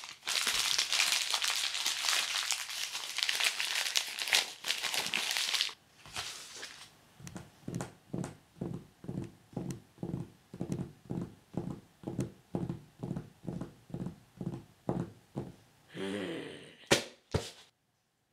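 Origami paper crinkling and rustling as it is folded, with small clicks, for about the first six seconds. It is followed by a steady run of soft thumps, about two a second. Near the end come a short wavering tone and a sharp click.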